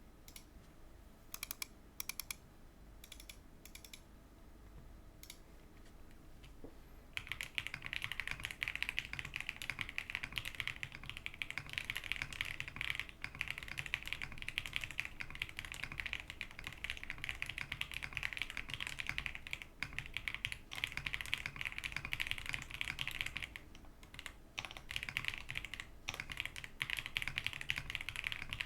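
QK65 mechanical keyboard with stock Wuque Aurora Pink switches and plate foam being typed on: a few separate keystrokes over the first several seconds, then fast continuous typing with a brief pause a few seconds before the end.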